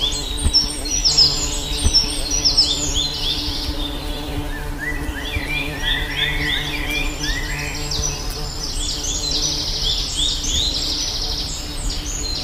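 Honeybees buzzing in a steady low hum, with dense quick high bird chirps over it that thin out midway and build up again.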